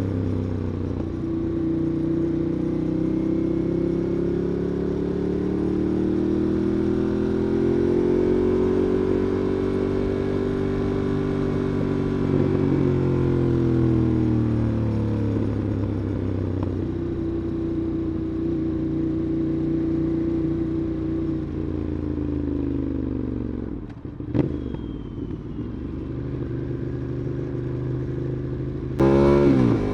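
Ducati Monster 821's L-twin engine heard from the rider's back while riding, its pitch slowly rising and falling with the throttle. About two-thirds through the revs drop low with a single click, and near the end the engine opens up in a sharp acceleration.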